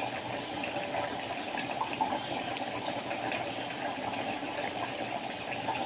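Mutton curry simmering in the pot, a steady bubbling hiss with small pops and crackles.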